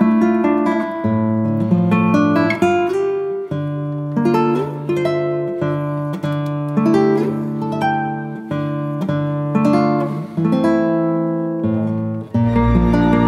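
Background music of plucked acoustic guitar playing a slow melody of single notes. About twelve seconds in, it changes suddenly to a fuller passage with more bass.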